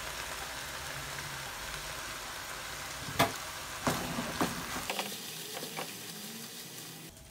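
Chicken strips and onion frying in a nonstick pan with a steady sizzle while blended tomato is stirred in with a spatula, with a few knocks and scrapes between about three and five seconds in. The sizzle grows quieter over the last couple of seconds.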